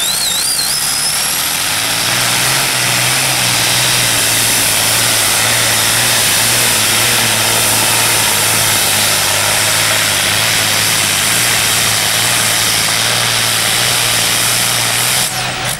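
Free-class pulling tractor's supercharged engine running at full power during a pull. The loud, steady engine note strengthens about two seconds in and holds until it drops away just before the end.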